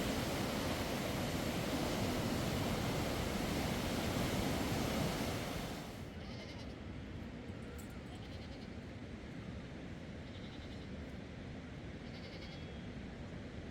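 Steady rushing noise of rain and river water, which cuts suddenly to a quieter hiss about six seconds in; a few faint, short, high animal calls follow.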